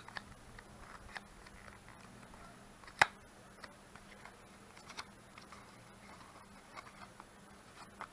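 Hands handling a small cardboard and plastic cable package: scattered light clicks and taps, with one sharp click about three seconds in.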